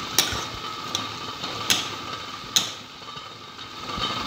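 Metal spoon knocking and scraping against a metal kadhai while chopped tomatoes cooking in oil are stirred. There are three sharp knocks over a steady sizzle.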